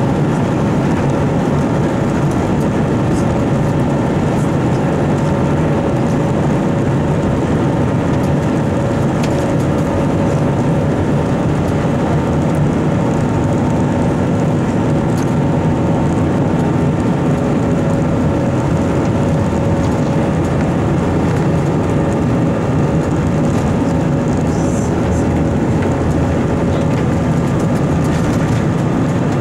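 Airbus A321 jet engines at high power during the take-off roll, heard from a cabin seat over the wing: a steady loud rush with a droning fan tone over a low rumble from the wheels on the runway.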